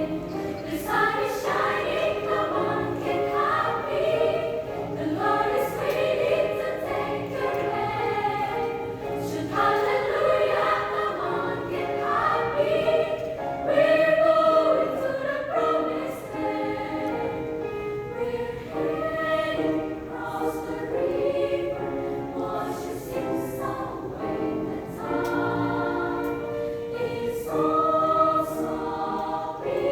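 Children's choir singing in several parts, with the voices shifting together from note to note.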